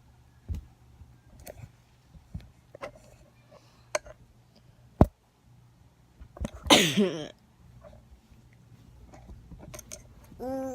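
A single loud sneeze about seven seconds in, with scattered soft knocks and clicks around it and a short vocal sound near the end.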